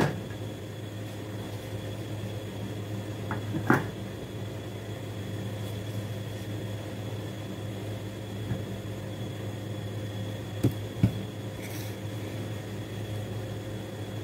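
Steady low mechanical hum, like a kitchen fan, over a pot left to boil under its lid. A stainless steel pot lid clanks as it is set down at the start, again about four seconds in, and two light knocks come near the end.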